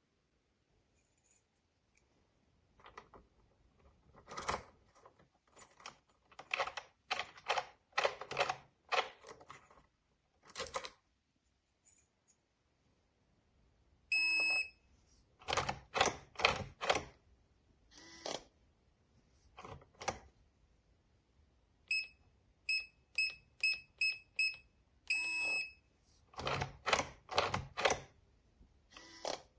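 Electronic fingerprint door lock beeping: two long beeps and a quick run of short beeps at one steady pitch. Between them come bursts of rattling clicks from the lock hardware being worked.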